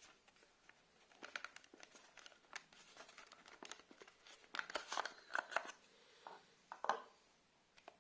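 Hands handling an Ajax alarm siren and its batteries: a run of small plastic clicks, scrapes and crinkling, busiest and loudest towards the end.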